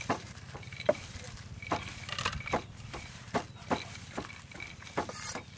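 Peanuts clicking and rattling against each other and the bowl as hands rub them to strip off their red skins, in irregular sharp clicks about one or two a second.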